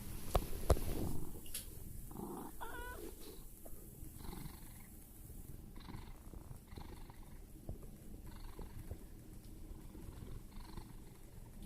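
Domestic cat snoring in its sleep: a soft rasp with each breath, about every one and a half to two seconds, with a brief wavering squeak in one breath about three seconds in. Two sharp clicks sound at the very start.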